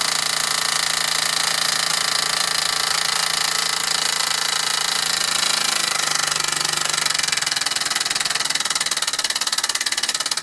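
1949 Mamod SE2 toy steam engine running fast on steam, giving a rapid, even chuffing from its cylinder exhaust. The beats slow a little near the end as it eases toward tick-over.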